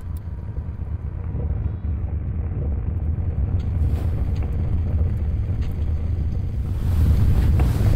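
A low, steady rumbling noise that swells louder, with a hiss coming in near the end.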